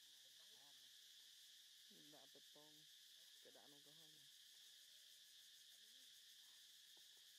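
Near silence: a faint steady high-pitched hiss, with a few faint, distant voices rising and falling two or three times in the first half.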